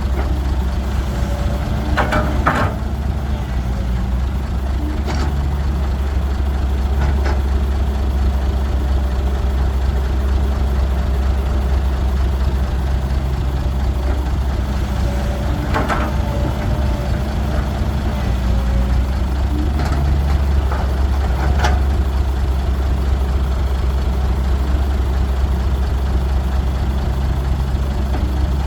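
Cat 312 excavator's diesel engine running steadily with a strong low hum as it loads soil onto a truck. A few short, sharp knocks and clanks come through it, about six in all.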